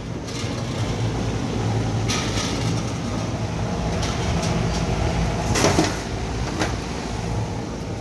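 Steady low hum of rooftop HVAC equipment running, with several knocks and clanks of sheet-metal panels and a work light being handled as a package unit's access panel comes off. The loudest clank comes a little over halfway through.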